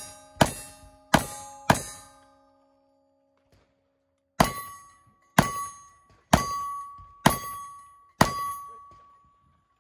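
Single-action revolver shots, each followed by the ring of a struck steel target. Three quick shots about half a second apart, a pause of almost three seconds as the shooter changes guns, then five more shots about a second apart. The later plates ring at a higher pitch.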